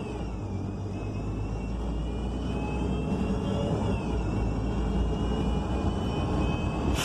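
Transit bus accelerating, heard from inside: the Cummins Westport L9N natural-gas engine's low drone under a high whine from the Voith automatic transmission. The whine climbs, drops about four seconds in as the transmission shifts up, then climbs again.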